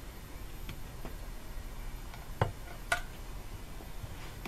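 A few light metal clicks from a valve spring compressor being turned in by hand against a valve spring and retainer on a BMW 323i cylinder head, with two sharper clicks about two and a half and three seconds in.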